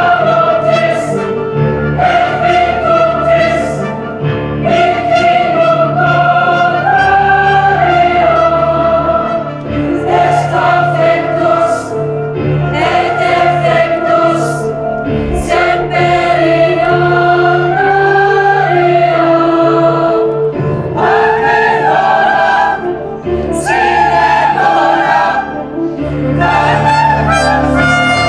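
A large choir of young voices singing together in sustained chords, the melody moving slowly up and down, with short breaths between phrases.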